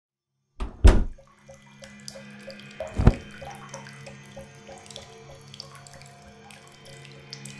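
Horror sound effects: after a moment of silence, two heavy low booms about two seconds apart, then a steady low drone with rapid light ticking over it.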